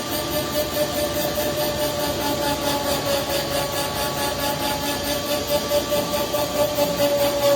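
Tire truing machine spinning a tire while its cutter shaves rubber off the tread to remove high spots: a steady machine hum with a fast, regular pulsing.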